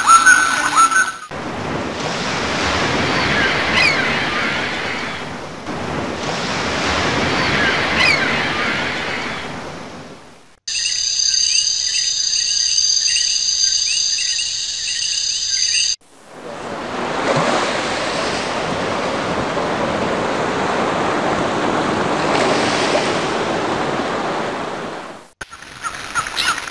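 Ocean waves washing in and ebbing in long swells, with a few short bird chirps over them. In the middle this breaks off for about five seconds of high, steady, pulsing chirping.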